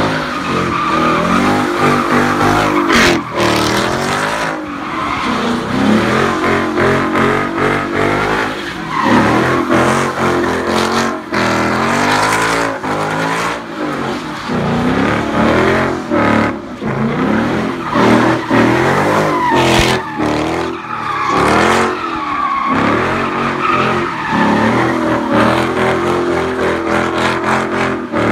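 A car doing donuts: its engine revving hard, pitch rising and falling over and over, while the rear tyres screech continuously on the pavement as they spin and smoke.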